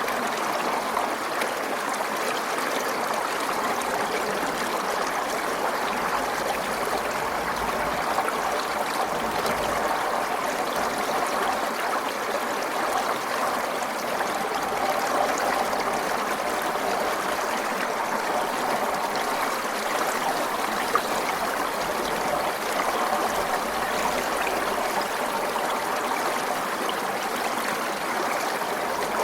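Small forest stream flowing steadily, a continuous, even rush of running water.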